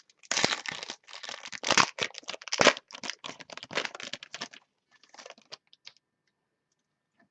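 Trading card pack wrapper being torn open and crinkled by hand: a rapid run of crackles and rips, dying away to a few last crinkles about five seconds in.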